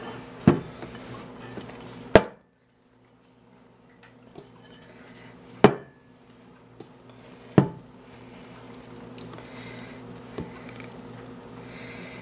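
Stainless steel mixing bowl knocked against the countertop four times, sharp metallic clanks a couple of seconds apart with a few lighter taps between, as stiff dough is worked out of it.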